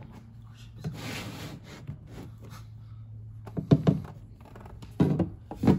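Engine oil from a Honda Grom pouring out of the drain-plug hole into a plastic drain pan, with a few short knocks and clunks near the end as the drain bolt and pan are handled.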